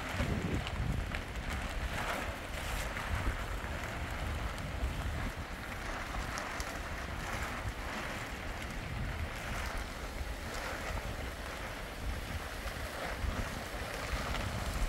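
Storm wind gusting and buffeting the microphone with a heavy low rumble, over a steady rushing hiss that swells with each gust every couple of seconds.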